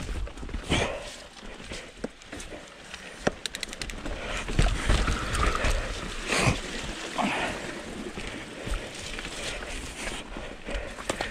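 Mountain bike riding down a dirt trail: tyres rolling over rough ground, with irregular knocks and rattles from the bike and a low rumble. A short run of quick, even ticks comes about three and a half seconds in.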